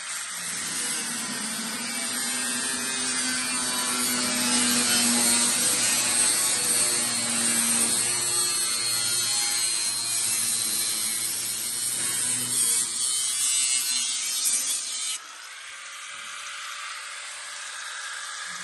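Angle grinder cutting into steel bodywork: a loud, steady hiss of cutting with the motor's hum wavering under load. The sound drops suddenly about fifteen seconds in.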